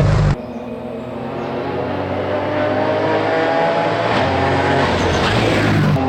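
Ford Fiesta R2T rally car's turbocharged three-cylinder engine under load. Its sound drops off abruptly shortly after the start, then the engine note climbs steadily as the car accelerates.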